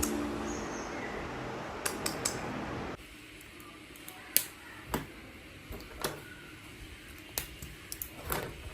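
Scattered light clicks and taps of small objects being handled, roughly one a second, after a faint hiss that stops about three seconds in.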